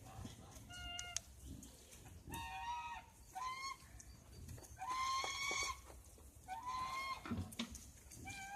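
Piglets squealing: about five short, high-pitched squeals, the longest about five seconds in.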